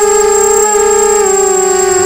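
Electric motors and propellers of a 250-size FPV racing quadcopter whining steadily in flight, heard through its onboard camera; the pitch dips slightly a little past halfway.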